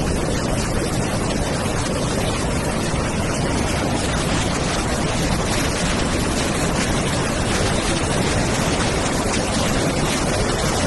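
Floodwater rushing in a steady, even noise with no breaks.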